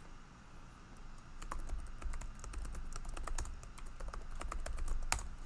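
Typing on a computer keyboard: an irregular run of key clicks, with one harder keystroke near the end.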